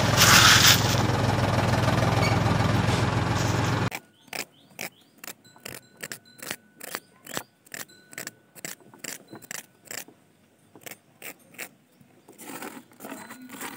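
A small motor running with a steady low hum that cuts off abruptly about four seconds in. Then a run of light clicks and scrapes as a small tool works wet cement on a miniature bridge slab, and near the end the soft slop of wet cement being poured from a cup onto it.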